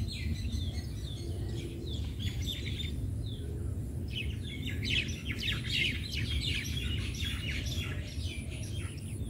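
Many small birds chirping, a dense chatter of short, quick chirps, busiest about halfway through, over a low steady rumble of background noise.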